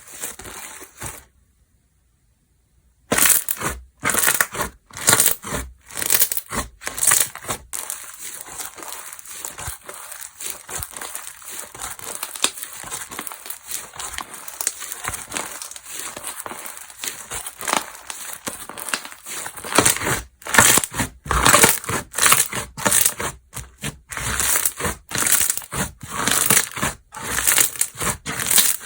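Slime being pressed, stretched and poked by hand, giving quick crackling pops and squishes. There is a short break of silence about a second in.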